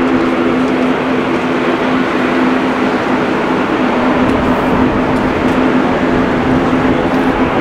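Airbus A350-1000's Rolls-Royce Trent XWB turbofans running at low thrust as the airliner taxis past. The sound is a steady jet rumble and hiss with a constant droning hum under it.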